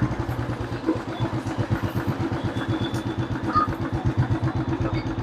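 Royal Enfield Classic 350 single-cylinder engine running with a steady, even thump of about seven to eight beats a second. There is no front-end knocking; the steering-head bearings have been freshly repaired.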